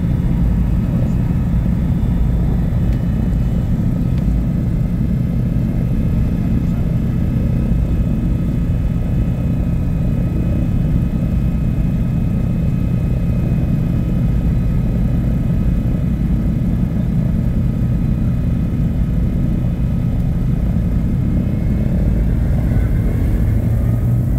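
A Douglas DC-3's radial piston engines running at low power, heard from inside the cabin as a steady, deep rumbling engine note. Near the end the pitch starts to rise as the engines speed up.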